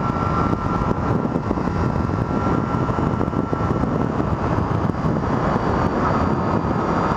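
Triumph Street Triple R's 675 cc inline three-cylinder engine running steadily under way, mixed with the rush of wind over the microphone.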